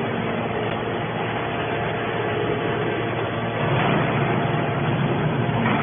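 A motor or engine running steadily, with a low hum under an even mechanical noise.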